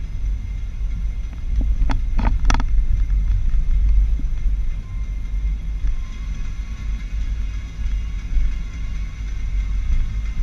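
Car rolling slowly at low speed, a steady low rumble of engine and road noise, with a short cluster of three or four sharp clicks about two seconds in.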